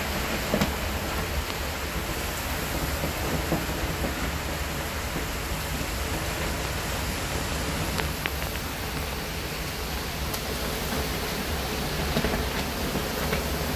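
Heavy rain falling steadily, an even hiss, with a low rumble of wind underneath and a few faint drip ticks.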